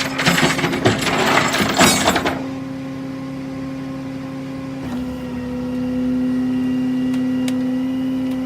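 A vehicle's machinery running with a steady whining hum. Metallic clattering and knocking fill the first two seconds. About five seconds in, the whine drops slightly in pitch and grows louder.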